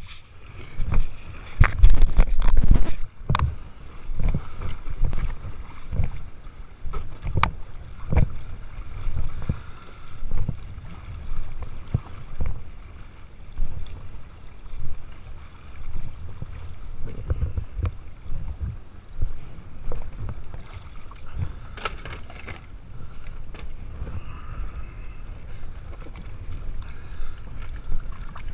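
Water sloshing and slapping at the waterline, with irregular low thuds and gusts of wind on the microphone. The loudest buffeting comes about two seconds in.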